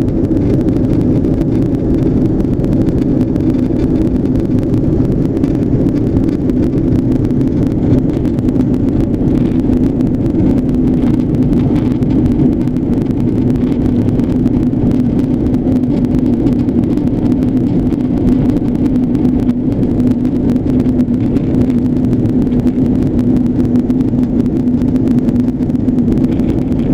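Steady drone of an airplane's engines heard on board, a constant low hum with a strong steady tone that does not change.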